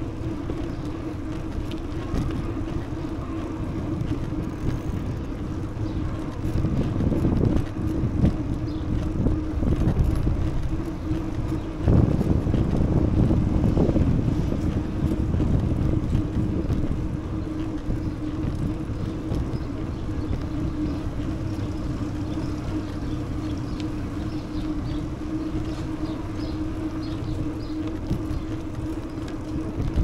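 Rushing wind noise on the microphone while riding a bicycle, with a steady low hum throughout. The rushing swells louder and rougher in the middle before settling back.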